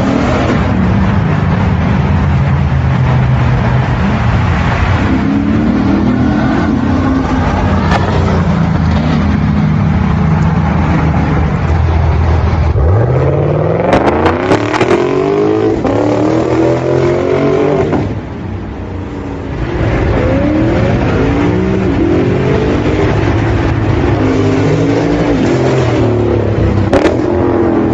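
Lexus RC F's 5.0-litre V8 running through a titanium valved aftermarket exhaust, revving repeatedly. A little under halfway through, one hard rev climbs steeply, with sharp cracks at its top. The engine drops back briefly about two-thirds of the way through, then revs again.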